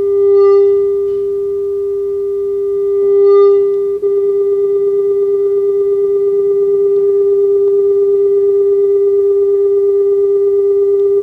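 Steady mid-pitched electronic test tone from a tone generator run through a multi-effects pedal. It swells in loudness twice, then about four seconds in the pedal's effect switches to a fast, even wobble of about eight pulses a second.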